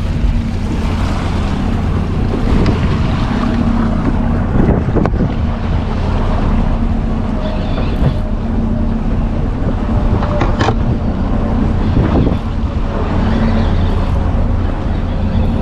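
Strong wind buffeting the microphone over the steady hum of a boat's motor, with a few short knocks and clicks.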